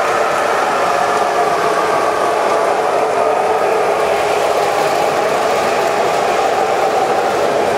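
Several O-gauge three-rail model trains running at once: a steady, even whir of electric motors and gears with the wheels running on the metal track.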